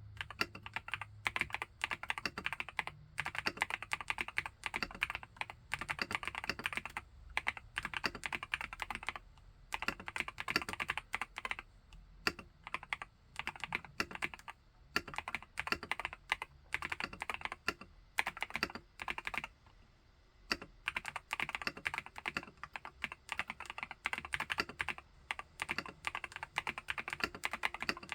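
Typing on an Epomaker Brick 87 tenkeyless mechanical keyboard with Epomaker Wisteria linear switches: fast runs of keystrokes broken by short pauses, most clearly about twelve seconds in and around the twenty-second mark.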